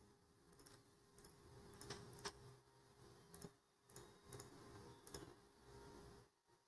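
Faint, irregular clicks of a computer mouse and keyboard, about ten in all, over quiet room tone.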